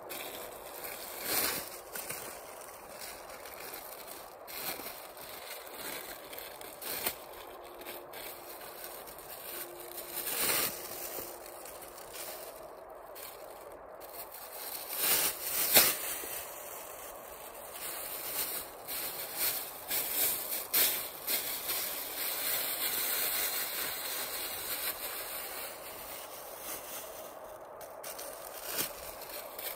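Thin plastic bag crinkling and rustling as it is handled, with scattered scrapes and crunches of snow underfoot.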